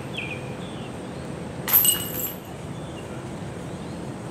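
A disc golf putt striking the chains of a Mach X basket about two seconds in: one sharp metallic clash followed by a brief ringing jingle of chains. The chains are new and still being broken in.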